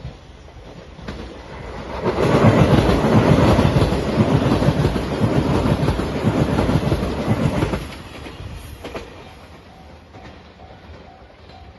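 A Shiokaze limited express train passing close by at speed: a loud rush with rapid clickety-clack of wheels over rail joints, rising about two seconds in and dropping away after about six seconds. Near the end a level crossing bell rings in a steady repeating pattern.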